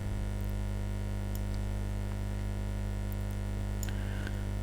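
Steady electrical mains hum, a low buzz with its overtones, with a few faint ticks over it.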